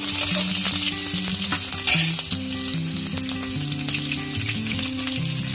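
Sliced onions sizzling in hot oil in a pan: a steady crackling hiss that flares louder for a moment about two seconds in.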